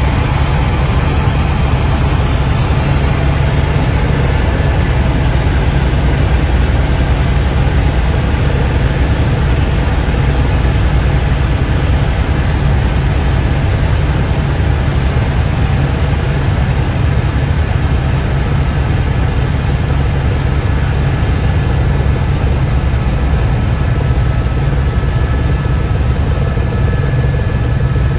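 Aircraft engine drone heard from inside the cabin on approach to land: a steady, loud deep hum with faint steady whining tones above it, unchanging throughout.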